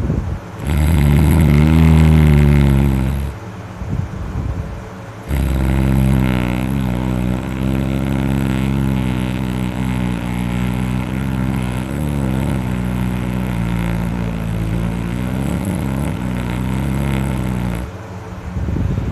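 A sleeping man snoring very loudly with a deep rumbling snore. One snore of about two and a half seconds comes near the start; after a short lull comes a long unbroken stretch of snoring lasting over ten seconds, its pitch wavering.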